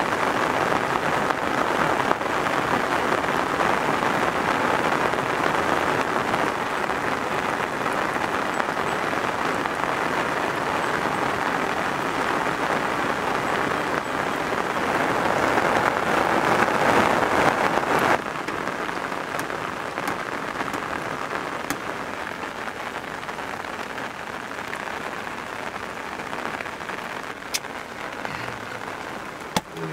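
Steady rain falling, a dense even hiss that drops suddenly to a lighter level about eighteen seconds in, with a few faint ticks near the end.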